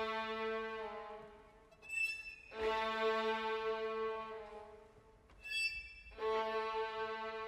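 Violins playing a braying figure in turn: a brief, thin, very high note drops to a long, low held note, twice over. This is the violins imitating a donkey's hee-haw.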